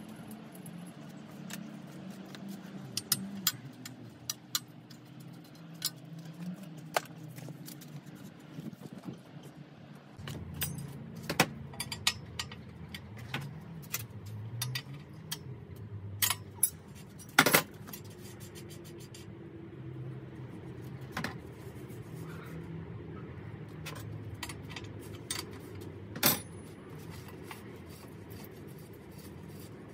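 Small metal bicycle parts clinking and tapping by hand as the fork and headset are fitted to a bare frame. It comes as scattered sharp clicks, with the loudest just past halfway, over a steady low hum.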